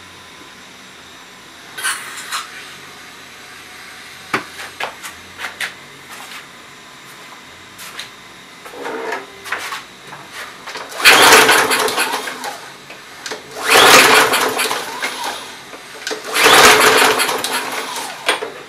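Briggs & Stratton lawn mower engine pull-started three times, each pull of the recoil starter cranking it over for a second or two before it dies away without running, after some light clicks of handling. The engine is not getting throttle: its plastic carburettor's throttle butterfly is fitted the wrong way round.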